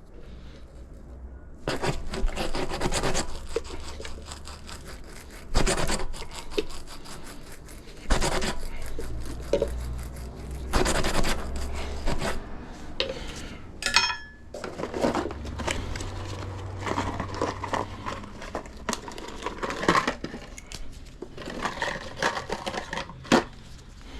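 Irregular scraping, rustling and clicking of hand work on a tire, with a brief high chirp about two-thirds of the way through.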